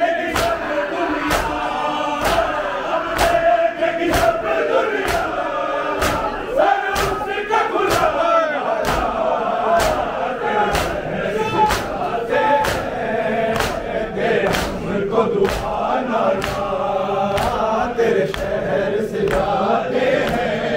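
A crowd of men chanting a noha together, with their chest-beating (matam) striking in time about twice a second.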